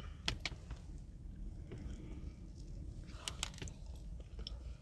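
Mouth chewing a bite of dense shortbread cookie topped with caramel and chocolate: soft, scattered wet clicks, with a small cluster about three seconds in.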